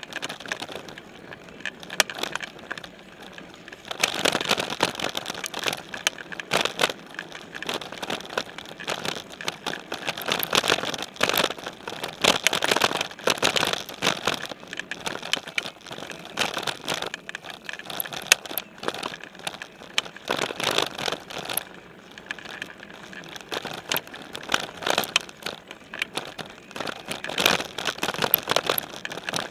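Specialized Stumpjumper mountain bike riding over a dirt singletrack, heard through a camera mounted on its frame: tyres crunching on dirt and the bike rattling over bumps with many sharp knocks. It is quieter at the start and again briefly after about 20 seconds.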